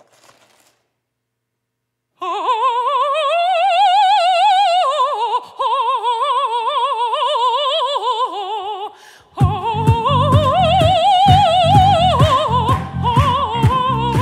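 After about two seconds of near silence, an operatic voice sings a line with wide vibrato. About nine seconds in, the singing breaks off briefly, then goes on over a heavy rhythmic beat.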